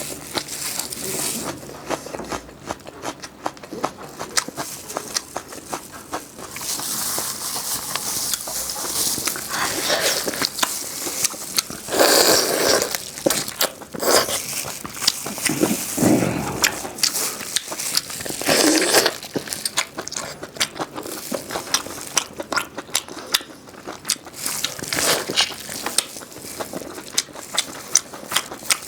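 Close-miked eating sounds: a person chewing and biting food, with many small crackles and clicks and a few louder crunchy bites.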